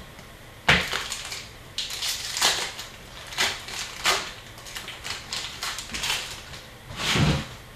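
Paper and foil rustling as Upper Deck Series 2 hockey card packs are opened and the cards handled: a run of irregular crinkling swishes, the loudest about a second in and near the end.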